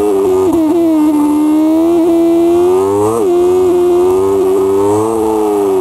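Motorcycle engine running at a steady road speed, heard from on the bike, its pitch wavering gently with the throttle and rising briefly about three seconds in.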